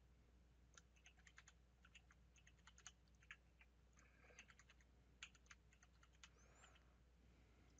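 Faint computer keyboard typing: short runs of key clicks that stop about six seconds in.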